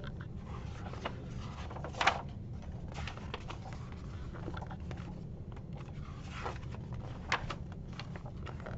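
A hardcover picture book being opened and its pages turned: a few short paper and cover sounds, the sharpest about two seconds in, over a steady low room hum.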